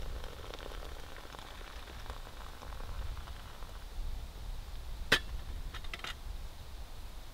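Hot water pouring from a metal pot into a foil meal pouch, a steady trickle for about four seconds. About five seconds in comes a sharp metal clink as the pot is set down on the stove's metal grate, then a few lighter clicks.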